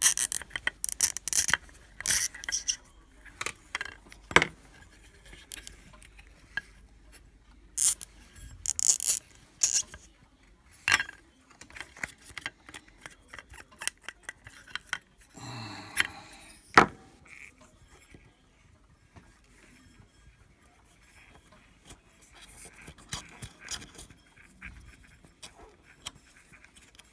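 Cotton swab scrubbing inside the plastic housing of a Bosch mass airflow sensor, with clicks and small knocks of the part against a metal bowl. Bursts of scraping and clicking come thick and fast through the first dozen seconds, then thin out to quieter handling.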